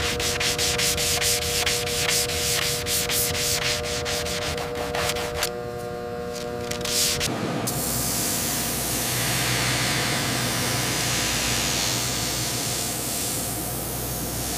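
Sandpaper rubbed by hand over a steel pistol slide in quick repeated strokes. About seven seconds in it gives way to the steady hiss of a bench grinding wheel against the steel.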